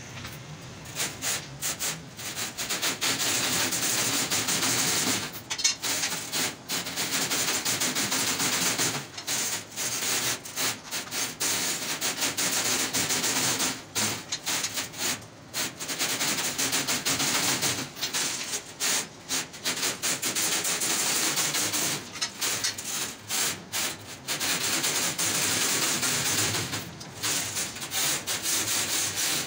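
Steel wire scraping and rubbing against steel mesh as the wires are worked through it by hand: a continuous rough rasping, broken by many short pauses.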